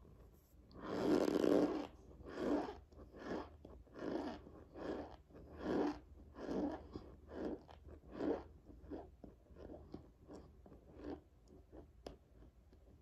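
A mouthful of raw cornstarch being chewed close to the microphone: a loud first crunch about a second in, then a steady chewing rhythm of a little more than one chew a second that grows fainter and dies away near the end.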